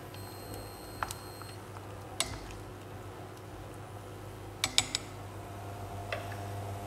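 Wooden chopsticks clicking against the rim and side of a stainless steel pot while stirring sliced squash in water: a few single taps, then a quick cluster of three, over a steady low hum.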